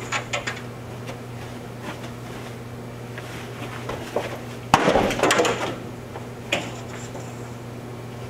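Running footsteps and a burst of knocks and thumps from a slam dunk attempt at the far end of an office corridor, about five seconds in, with a single knock a little later. A steady low electrical hum runs underneath.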